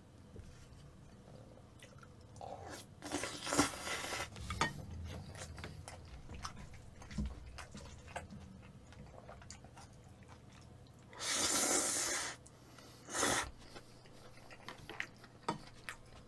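Close-up eating sounds: wide knife-cut noodles in black bean sauce slurped in loud hissy bursts, the longest just after the middle, with wet chewing and small chopstick clicks between them.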